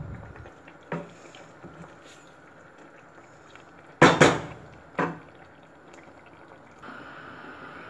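Chicken curry sauce simmering in a stainless-steel pot while a metal spoon stirs it, knocking against the pot once about a second in and loudest in a quick cluster about four seconds in, with one more knock a second later. A steady hum comes in near the end.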